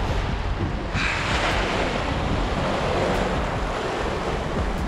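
Water rushing and splashing along the hull of a small boat running through choppy sea, with strong wind buffeting on the microphone. The rush of water swells about a second in.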